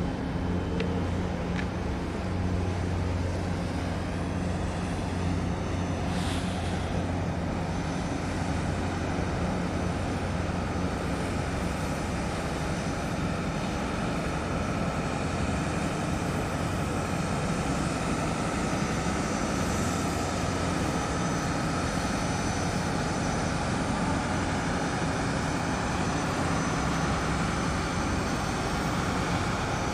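A steady low engine drone, with a faint higher whine building through the second half.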